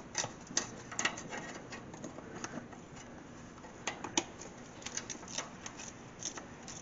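Irregular light clicks and taps of hand tools working loose transmission line fittings, with the sharpest click a little past four seconds in.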